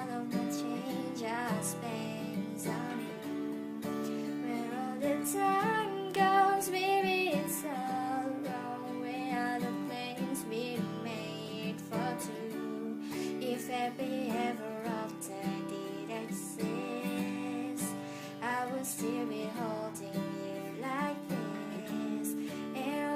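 A woman singing over a strummed acoustic guitar. Her voice comes and goes, with long sliding notes, while the guitar keeps playing.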